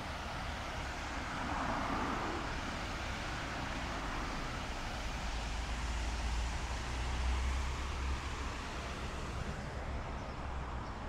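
Steady city street traffic noise, a wash of passing vehicles with a low rumble that swells in the middle.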